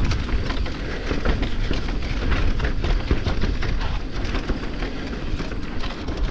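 Electric mountain bike being ridden over a dirt trail: tyre noise with a constant crackle of clicks and rattles from the bike, and wind rumbling on the microphone.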